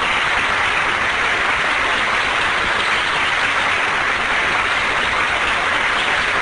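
Sustained applause from a large crowd, a steady dense clapping without letup.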